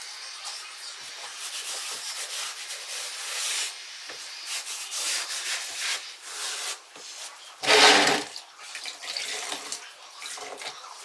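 Freshly grouted tiles being wiped clean with a damp rag: an uneven rubbing and scrubbing with wet, watery sounds. There is a louder swish about eight seconds in.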